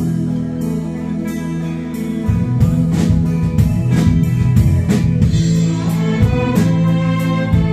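A string orchestra and rock band playing together: bowed violins and cellos over drum hits, with the bass and full band coming in louder about two seconds in.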